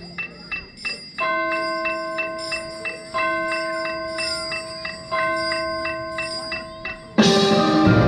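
Marching band music at a soft passage: light percussion taps, then three ringing bell tones from the mallet percussion, struck about two seconds apart and each left to sound. About seven seconds in, the full band comes in loudly.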